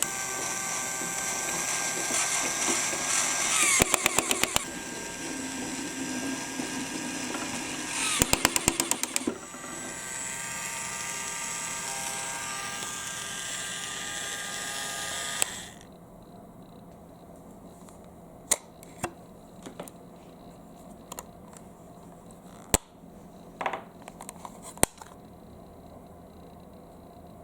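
Electric drill motor whirring steadily as it drives the marble elevator, with quick runs of rapid clicking from marbles clattering along the track. The drill stops suddenly about halfway through, and only a few scattered clicks follow.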